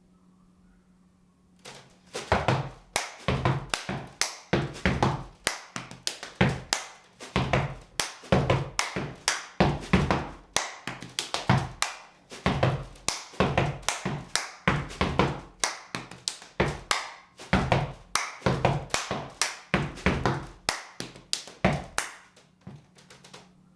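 Step routine: rhythmic foot stomps and hand claps, struck in quick patterns, starting about two seconds in and stopping near the end.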